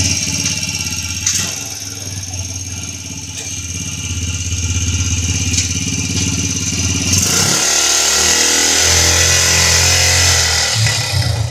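Motorcycle engine in a homemade go-kart-style utility car, running steadily, then revved about seven seconds in and held higher for a few seconds before easing off near the end.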